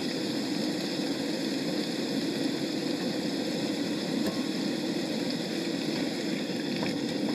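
White wine and sautéed vegetables bubbling and sizzling in a pan over a running camp stove burner as the liquid reduces: a steady hiss with no break.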